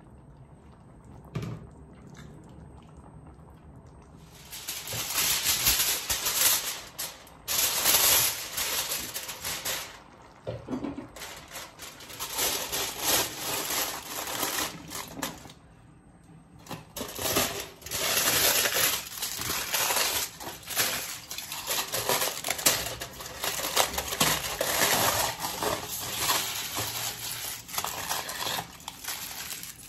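Aluminium foil crinkling as it is crumpled and pressed around the rim of a wok to seal on a wooden lid, in stretches from about four seconds in with short pauses.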